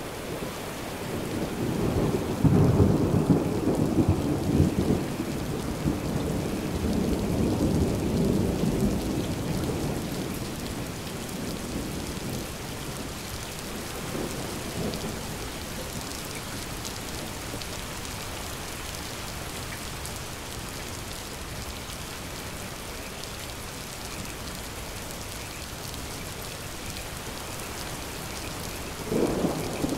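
Steady rain with a long, deep roll of thunder that swells about a second in, holds for several seconds and dies away. A fainter rumble comes around the middle, and another roll of thunder begins just before the end.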